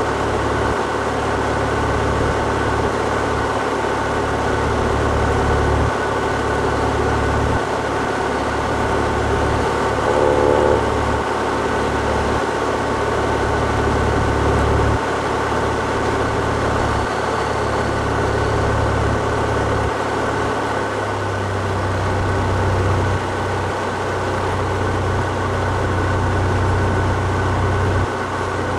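Cessna 172's piston engine and propeller running steadily in flight, heard from inside the cabin as a loud, deep drone with air rushing past. The low hum shifts in pitch about two-thirds of the way through.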